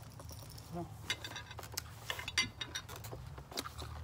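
Close-up chewing of a forkful of spicy raw salmon salad, a string of wet crunches and clicks from the mouth, over a low steady hum.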